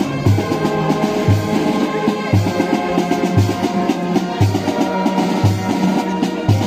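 Marching brass band playing held chords over a bass drum beating about once a second.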